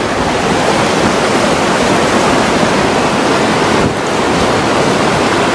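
Flash-flood torrent of muddy water rushing fast through a desert wadi at close range: a loud, steady rush of churning, breaking water.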